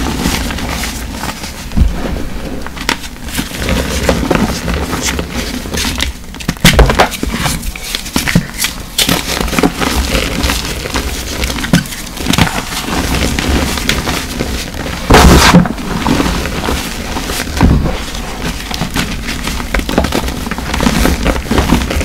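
Hands squeezing and crushing blocks of reformed gym chalk in a bowl of loose chalk powder, giving a dense, irregular, crunchy crumbling with a few louder crunches along the way.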